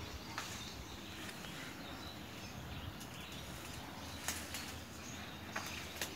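Quiet outdoor background: a steady low hiss, broken a few times by short sharp clicks. No chainsaw is running.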